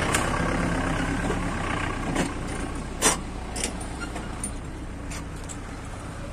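Truck engine idling close by while other vehicles drive past. A few sharp clicks and knocks sound over it; the loudest comes about three seconds in.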